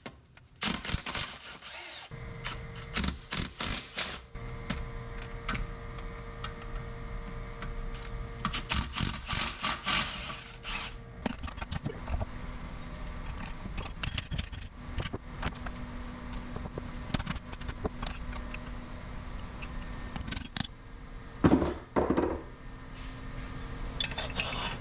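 Hand tools and loose steel parts of a Farmall 300 torque amplifier clinking, knocking and scraping during disassembly, as scattered irregular clanks over a steady background hum.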